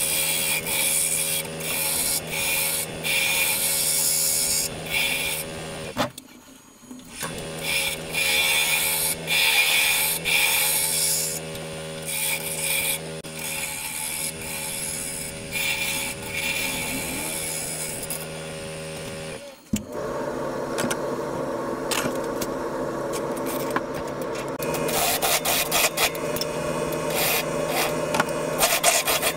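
Wood lathe running with a steady motor hum while a turning tool cuts the outside of a spinning cedar bowl blank in repeated scraping passes. The sound drops out briefly about six seconds in and again just before twenty seconds; after that the cutting is steadier and more continuous.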